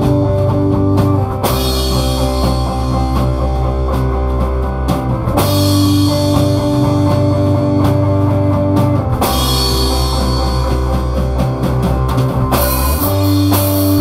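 Rock background music with a drum kit and guitar, its chords changing about every four seconds.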